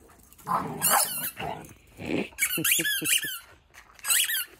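Dogs at play, with three bursts of high-pitched squeaking whose pitch wavers rapidly.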